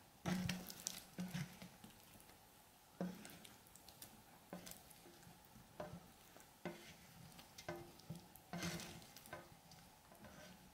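A silicone spatula scraping baked eggplant chunks out of a pan into a bowl: faint, irregular scrapes and soft knocks, about a dozen, as the pieces slide and drop.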